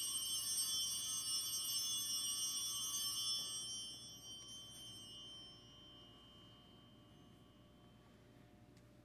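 Altar bells (sacring bells) ringing out at the elevation of the consecrated host, a cluster of bright tones that fades away over the first few seconds and leaves only a faint low hum.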